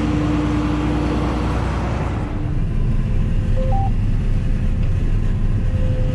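Combine harvester running, heard from inside the cab, its sound shifting about two seconds in. About three and a half seconds in, the yield monitor gives a short two-note chirp: the header-height sensor signalling that the head is low enough to start recording yield data.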